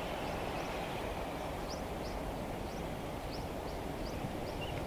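Steady outdoor background noise, heaviest in the low range, with a small creature's short high chirp repeating about three times a second from about a second and a half in.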